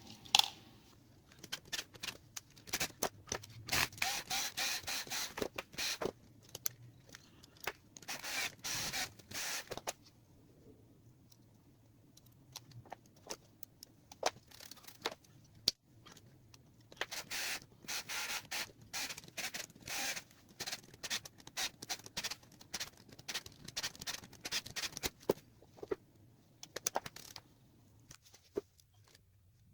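Rubbing and scraping work on an old Royal No. 5 manual typewriter. There are two long spells of quick strokes mixed with sharp clicks, with a quieter stretch between them.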